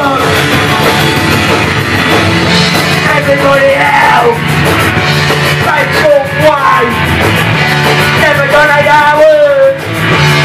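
Live rock band playing loudly, with drums and a lead singer.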